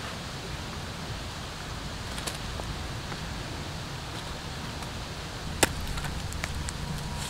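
Curved billhook knife knocking into palmyra fruit on a wooden log: a few sharp knocks, the loudest about five and a half seconds in, over a steady low outdoor rumble.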